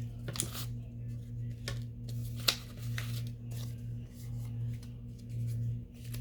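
Paper and card being handled: rustling and crinkling with scattered small taps, one sharper tap about two and a half seconds in, over a steady low hum.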